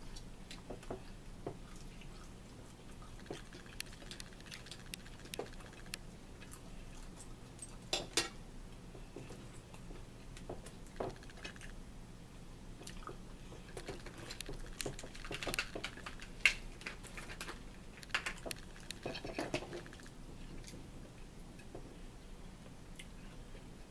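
Quiet eating sounds: a metal fork clicking and scraping on plates, with chewing and small mouth noises, as scattered short clicks that bunch together in places.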